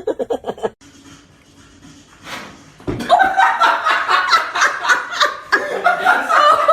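People laughing: a short burst of rapid, pulsing laughter at the start, then louder, sustained laughter from about three seconds in.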